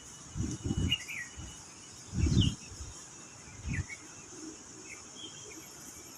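Birds chirping in short, scattered calls over a steady high insect drone. Three low rumbling bumps, the loudest sounds, come in the first half and the middle.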